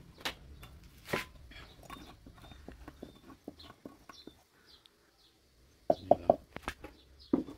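Wooden pestle pounding ingredients in a clay mortar. Scattered light knocks give way, about six seconds in, to a quick run of heavier thumps, with one more at the very end.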